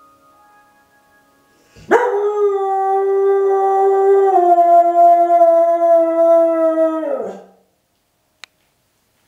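A husky-mix dog gives one long howl, set off by the municipal evening chime. The howl starts with a sharp rise about two seconds in, holds one pitch, steps down partway through, and slides down as it ends after about five seconds.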